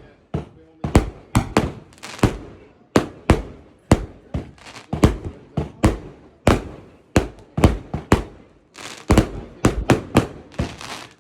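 Consumer 36-shot firework cakes firing, a rapid irregular string of sharp bangs at about two to three a second, each ringing out briefly.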